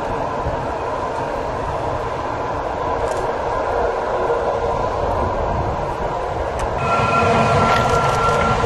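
Narrow-gauge electric train running past, with a steady rumble of wheels on rails. About seven seconds in the sound shifts and grows a little louder, and a thin steady whine joins in.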